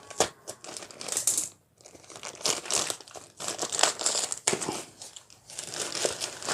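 Parcel packaging being crinkled and torn open by hand, in irregular crackly bursts.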